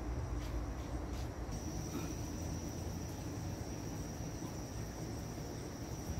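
Crickets trilling steadily in one high, thin tone that grows louder about a second and a half in, over a low background rumble. A few faint clicks of a knife and fork on a china plate come in the first second or so.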